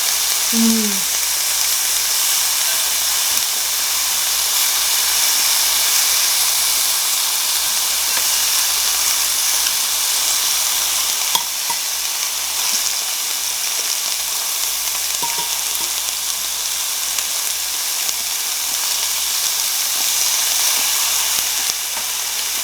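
Thin-sliced beef brisket sizzling steadily as it grills, a constant frying hiss with a faint click about eleven seconds in.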